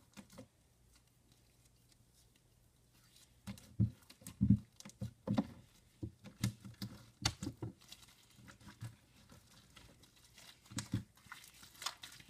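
Wet, sticky slime being squished and kneaded by hand, giving irregular soft squelches and pats that start a few seconds in.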